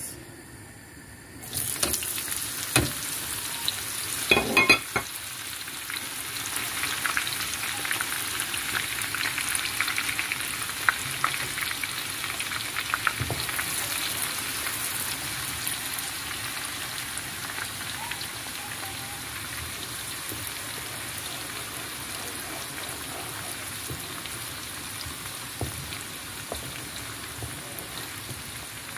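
Chopped onions and spring onions dropped into hot vegetable oil in a wok, sizzling at once about a second and a half in, then frying steadily as they are stirred with a wooden spoon. There are a few sharp knocks about four to five seconds in.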